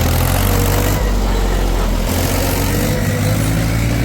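Heavy diesel engine of a working machine running close and loud, its pitch shifting slightly about one and two seconds in.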